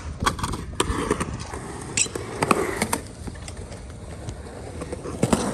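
Skateboard wheels rolling over concrete with a steady low rumble, broken by several sharp clacks of the board and trucks hitting the ground.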